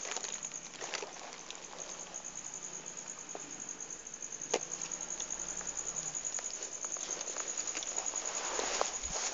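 A steady, high-pitched insect trill, with scattered soft clicks and a rustling that grows near the end.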